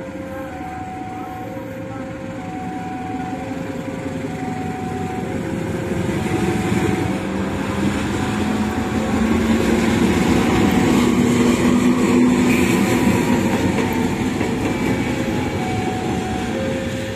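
KAI diesel-electric locomotive running light at low speed past the listener, its engine growing louder as it approaches and loudest about two-thirds of the way through, then easing off near the end. A level-crossing alarm sounds throughout, alternating between two tones.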